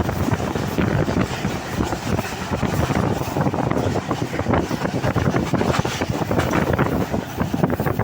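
Moving train rumbling and rattling, with wind buffeting the microphone.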